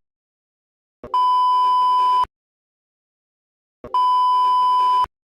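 Two electronic beeps from a mock Emergency Alert System alarm. Each is one steady tone near 1 kHz lasting about a second, and they come a little over a second and a half apart.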